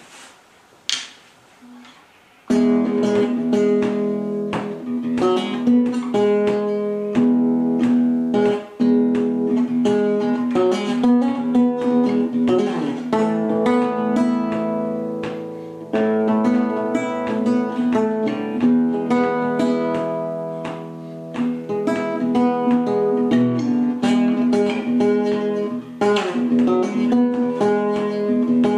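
Nylon-string classical guitar played fingerstyle, plucked notes ringing together. The playing begins about two and a half seconds in, after a near-quiet start with one soft knock.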